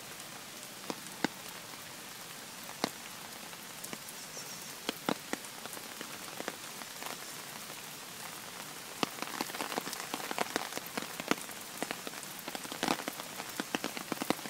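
Heavy rain pattering down in a steady hiss, with sharp close taps scattered through it that come thick and fast from about nine seconds in.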